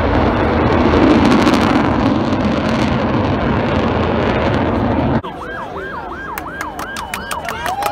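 Loud roar of an F-16 fighter jet's engine as the display jet passes, loudest about a second in. It cuts off abruptly about five seconds in, replaced by a quieter, siren-like warbling tone that rises and falls about three times a second.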